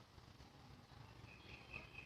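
Near silence: faint background hum, with a few faint, short, high chirps in the second half.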